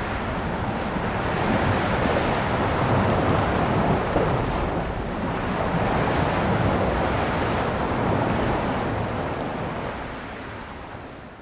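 Sea waves washing onto a beach: a steady rushing surf that swells and eases, then fades out near the end.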